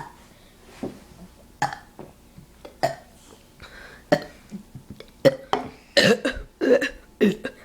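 A person burping: a string of short burps, more frequent and louder over the last few seconds.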